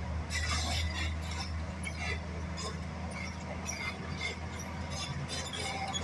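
Hitachi excavator's diesel engine running with a steady low hum, over frequent light metallic clinks and rattles.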